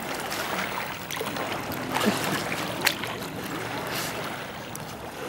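Lake water splashing and lapping around a swimming golden retriever and a man, with a couple of sharper splashes about two and three seconds in.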